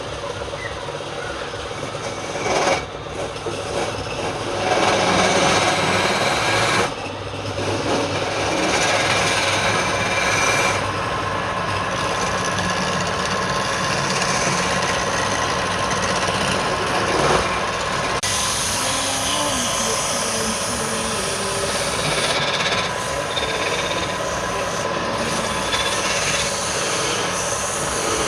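A wood lathe running, with a turning tool or abrasive rubbing against the spinning wood in a continuous rasping scrape that pauses briefly a few times.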